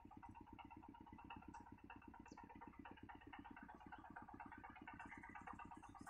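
Faint engine idling in the distance: a low, even pulsing at about ten beats a second.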